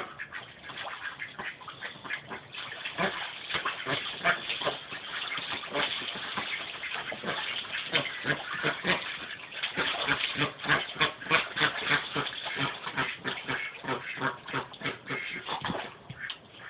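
Ducks splashing in a small tub of water and calling in short quacks while they mate, with a quick, busy patter of splashes throughout.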